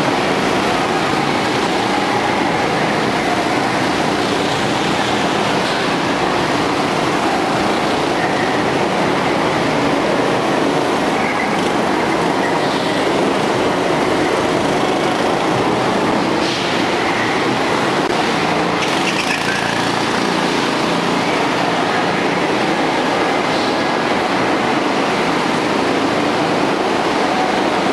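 Several go-karts lapping an indoor track: a steady, dense engine drone that fills the hall, with brief higher squeals now and then, typical of kart tyres sliding through the corners.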